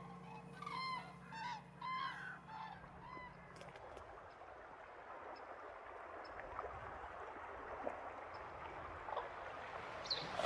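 A flock of common cranes calling in flight: a quick run of trumpeting calls over the first few seconds, then only a faint steady background hiss.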